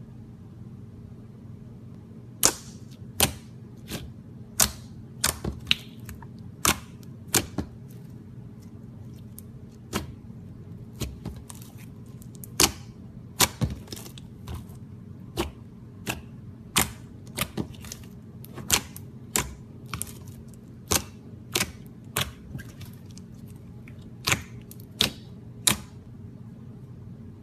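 Rainbow slime being pressed and poked by hand, giving off sharp pops and clicks, irregularly about one every half second to a second, over a steady low hum.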